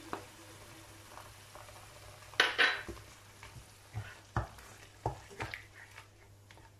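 Onion puree frying with whole cumin in hot oil in a wok, a faint steady sizzle. A wooden spoon stirs it, scraping and knocking against the pan several times, loudest about two and a half seconds in.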